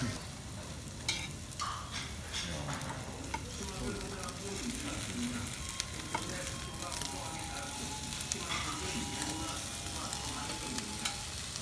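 Beef sizzling steadily on a tabletop barbecue grill, with scattered clicks of metal tongs as the pieces are turned.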